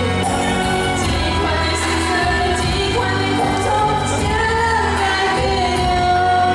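A girl singing a pop song live into a microphone over a backing track, heard through a hall's PA. She holds a long note near the end.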